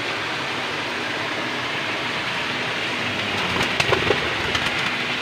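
Steady rushing of running water from a creek, with a few sharp clicks or taps a little past the middle.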